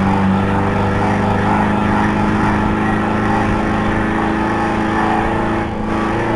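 Ford Transit van's engine running at steady revs, a continuous drone that dips slightly near the end.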